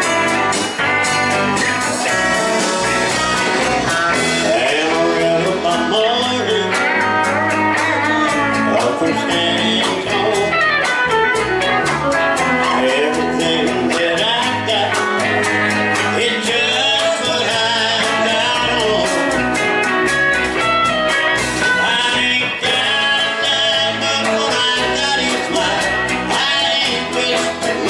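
A live band plays a country-rock song on electric guitars, electric bass and a drum kit.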